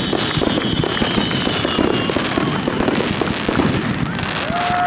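Aerial fireworks going off in a dense, continuous barrage of bangs and crackle, with a falling whistle near the end.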